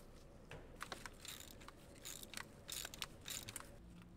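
Hand socket ratchet backing out a bolt on an automatic transmission's valve body: several short, faint runs of ratcheting clicks and metal scraping.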